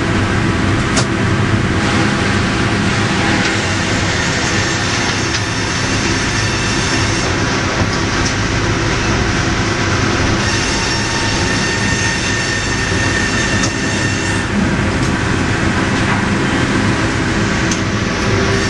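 Sawmill machinery running: a loud, steady mechanical din of roller conveyors and saw units, with a few sharp knocks as the timber moves through.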